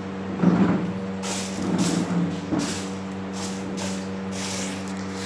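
A steady low motor hum, with a few short, louder irregular noises about half a second in and again around two seconds in.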